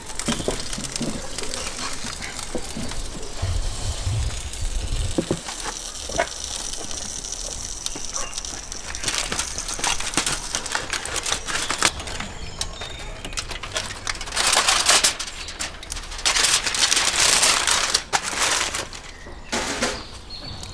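Aluminium foil crinkling and rustling as it is peeled off a baking tray, in two loud stretches, the second one longer.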